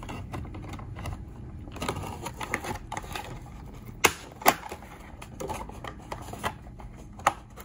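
A hard clear plastic display case being handled and worked open, with repeated clicking and tapping of plastic. Two sharp snaps come about four seconds in.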